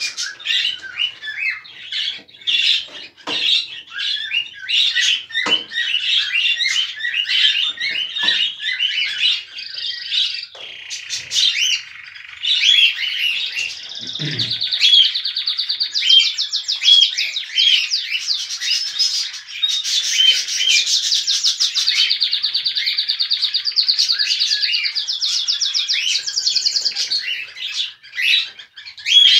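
Cockatiels chirping in quick short calls, then, about twelve seconds in, a long fast pulsing chatter that runs for some fifteen seconds, the rapid chatter a cockatiel pair makes while mating.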